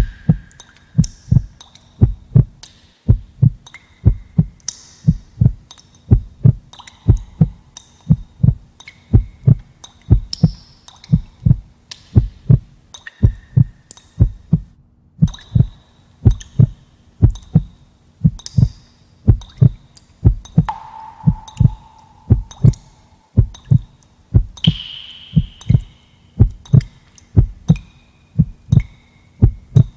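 Heartbeat sound effect: steady, paired low thumps (lub-dub) repeating evenly, with a brief gap about halfway. Faint short higher tones sound now and then over the beat.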